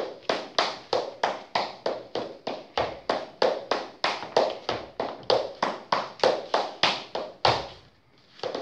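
Shoes striking a hard floor in Irish dance hornpipe steps: sharp taps in an even rhythm, about four a second, with a short break near the end before they start again.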